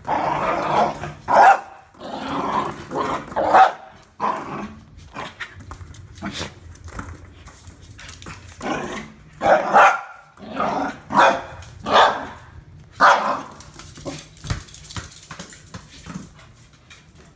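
Small puppy barking and growling in play, in repeated bursts with short pauses. The longer bursts come in the first few seconds, a run of sharp barks follows in the middle, and it grows fainter near the end.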